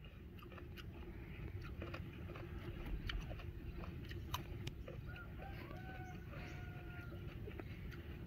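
A faint bird call in a few drawn-out notes, about five to seven seconds in, over a steady low rumble with scattered small clicks.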